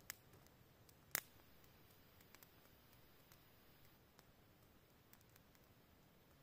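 Near silence with sparse crackles from a freshly lit wood campfire: a sharp pop about a second in and a few faint ticks after it.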